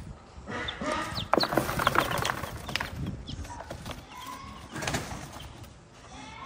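Hen shifting on a straw nest, with rustling scuffles of straw and feathers, loudest about one to three seconds in. A few short, high peeps from newly hatched chicks sound over it, and the hen gives a short low call about four seconds in.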